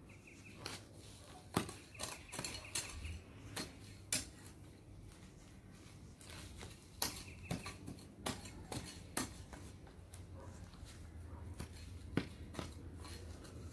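Garden hand tool working along a lawn edge: irregular sharp clicks and scrapes, a few a second, some louder than others.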